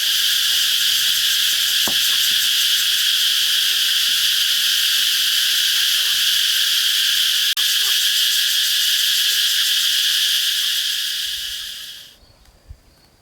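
Loud, steady, shrill insect chorus that fades out near the end, with one brief break about halfway through.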